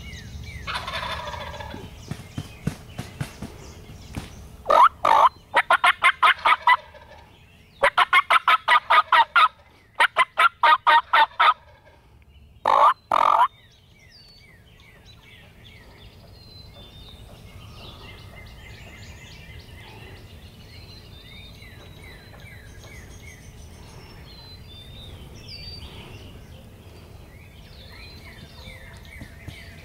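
Wild turkey gobbling: a run of about five loud, rapid rattling gobbles between about five and thirteen seconds in. Faint songbird chirps follow.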